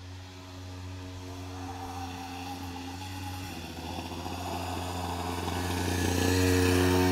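A small child's dirt bike running at a steady, even pitch, growing louder as it comes closer and loudest near the end.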